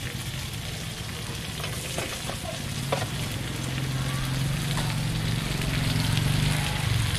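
Crispy batter crepe (khanom bueang yuan) sizzling in hot oil in a wok, a steady frying hiss, with two sharp clinks of a metal spoon about two and three seconds in. A low steady hum grows louder through the second half.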